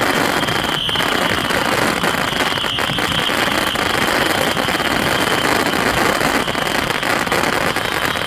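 Mass barrage of Saturn Missile fireworks: thousands of small rockets launching and popping together in a dense, steady roar, with a high whistle held through it.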